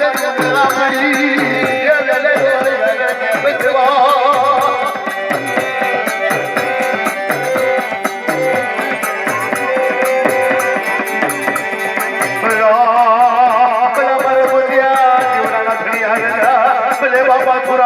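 Dakla folk devotional music: a wavering sung melody over a steady low drum beat and fast jingling, rattling percussion. A new, louder vocal phrase comes in about two-thirds of the way through.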